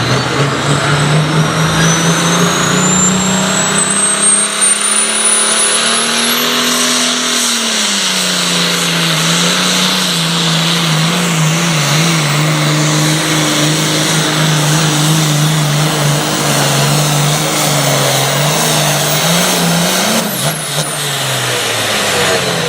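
Super Farm class pulling tractor's diesel engine running hard through a pull. Its note holds steady, rising slightly about six seconds in, while a high whistle climbs in pitch over the first six seconds.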